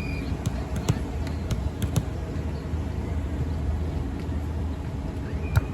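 Volleyball game play: scattered knocks and thuds of the ball being played and players moving, over a steady low hum. A short high-pitched squeak or whistle sounds near the end, together with the loudest knock.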